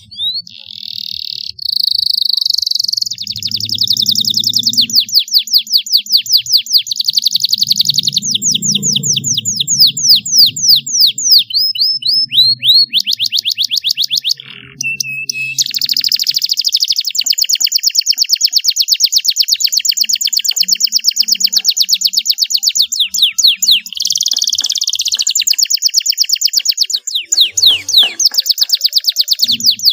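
Domestic canary singing a long song of fast trills and rapid repeated sweeping notes, switching to a new rolling phrase every few seconds, with a short break about halfway through.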